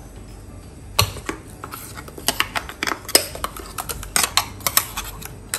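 A metal spoon scraping and clinking inside a stainless-steel mixer-grinder jar as thick coconut chutney is scooped out into a bowl. There is one sharp clink about a second in, then a quick, irregular run of taps and scrapes, and one last clink near the end.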